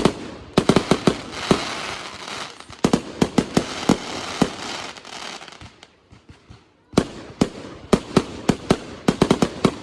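Consumer fireworks firing in quick runs of sharp bangs, with dense noise filling the gaps between them. After a pause of about a second past the middle, another rapid run of bangs follows.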